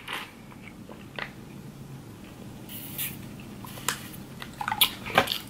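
Faint sipping through a straw from a foil drink pouch, with a few soft clicks and a brief hiss about three seconds in, and a sharper click about five seconds in.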